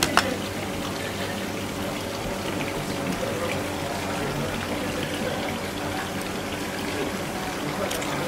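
Water running steadily into a steel basin over a low steady hum, with a sharp click just after the start and another near the end.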